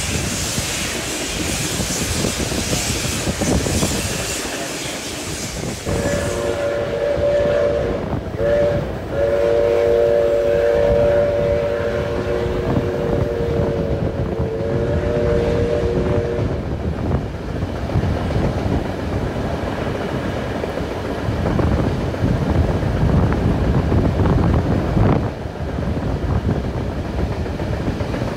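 A train rolling on the rails behind steam locomotive 5917, heard from a carriage window. About six seconds in, the locomotive's chime whistle sounds: a short blast, then a long one of about eight seconds, three notes held together. The train then runs on with a steady rumble of wheels.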